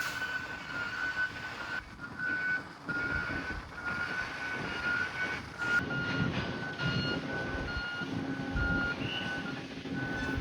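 A vehicle's reversing alarm beeping steadily at one pitch, about two beeps a second, over the low rumble of engines.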